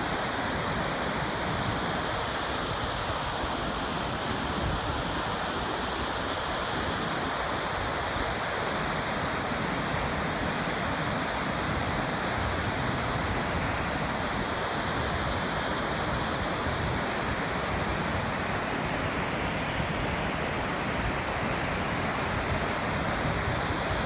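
Steady, unbroken rush of falling water from Gullfoss, a large two-tiered waterfall pouring into a rock canyon.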